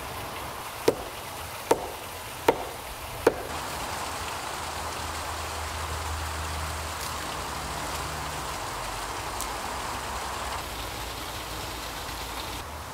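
Four sharp wooden knocks, evenly spaced a little under a second apart, as the end of a wooden pole is rammed down into hard earth. After them a steady hiss of running water carries on.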